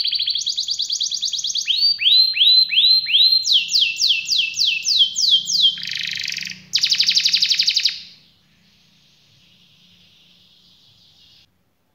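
Red factor canary singing one long song: fast rolling trills alternate with runs of repeated swooping notes, about three a second. The song ends in a fast high trill that stops about eight seconds in.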